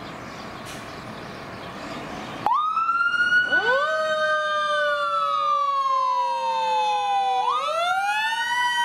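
Steady background noise, then suddenly, about two and a half seconds in, fire truck sirens start wailing. The tones rise, fall slowly in pitch, and rise again near the end.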